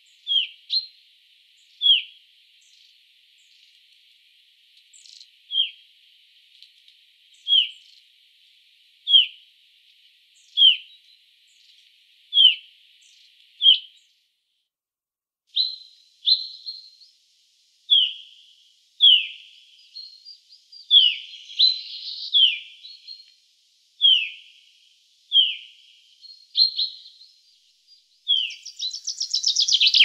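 Common chaffinch of the Black Sea subspecies calling: a short, falling note repeated every second or two, with a brief break halfway through. A fast, loud run of notes starts near the end.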